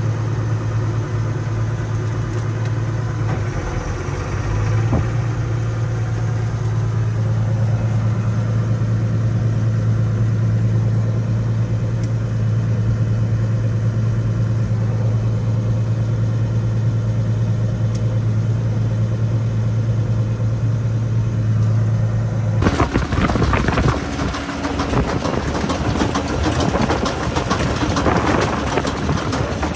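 A baler's machinery running with a steady, even hum. At about 23 seconds it changes abruptly to a louder, busy clatter of fast rattling clicks.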